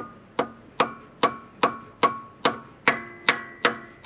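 Soft-faced hammer striking a stuck valve in the block of a 1950 Ford flathead V8, about ten even blows at roughly two and a half a second, each leaving a short metallic ring. The valve is seized tight in its guide and is being driven down to free it.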